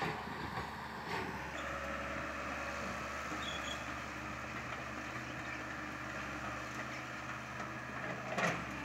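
CAT hydraulic excavator's diesel engine running steadily, with a higher hum joining about a second and a half in, and a short knock near the end.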